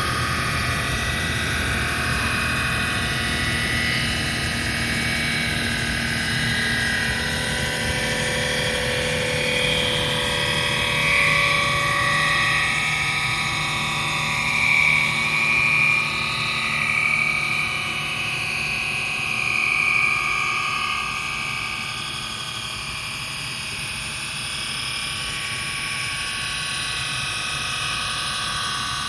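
A machine running steadily, with a constant low hum and a high whine that wavers in pitch and swells for a while around the middle.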